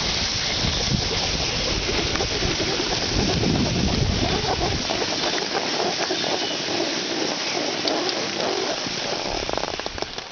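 Wind buffeting the microphone and skis hissing and scraping over packed snow while the person filming skis downhill. The low wind rumble eases about halfway through, and the sound falls off near the end as the skier slows to a stop.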